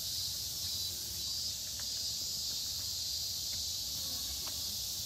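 Steady high-pitched insect chorus, with a few faint, very short chirps and a low background rumble.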